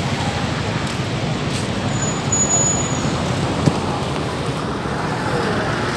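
Steady road traffic noise from motor vehicles, with one short sharp click a little past halfway.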